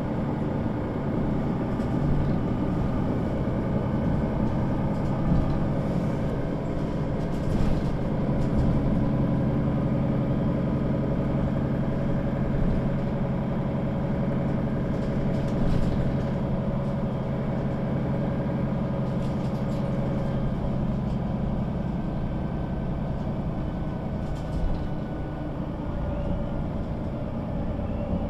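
Mercedes-Benz O 530 G Citaro articulated bus's engine running at a steady pitch, heard from aboard the bus, with a few brief knocks or rattles.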